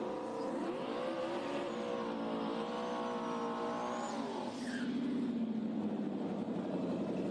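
Coyote V8 Mustang drag cars doing burnouts, engines held at high revs that waver up and down as the rear tyres spin. A little over four seconds in, the revs drop to a lower, steadier note.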